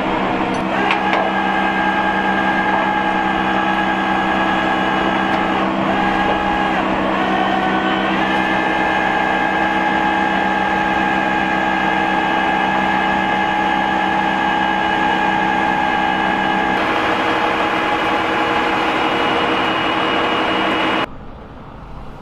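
Flatbed tow truck's winch and hydraulics running as a car is pulled up the tilted bed: a steady mechanical whine made of several tones. The pitch wavers and steps up about 6 to 8 seconds in, and the sound drops away sharply about a second before the end.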